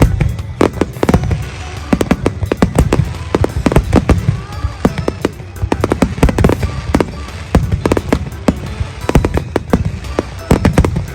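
Fireworks display: a rapid, irregular barrage of sharp bangs, several a second, from shells bursting overhead, over a continuous low rumble.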